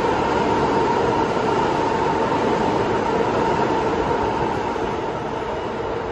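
R160 New York City subway express train running through the station without stopping: a steady rumble of steel wheels on rail with a steady whine over it, fading over the last second or so as the rear car passes.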